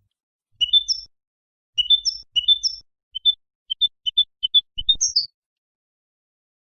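European goldfinch singing in short twittering bursts of high notes: three quick clusters, then a string of separate rapid notes ending in a bright falling pair.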